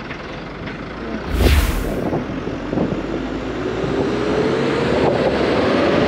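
Vehicle travelling along a highway, heard from aboard: steady road and engine noise with wind on the microphone. A brief loud whoosh comes about a second and a half in, and an engine note climbs slowly through the second half.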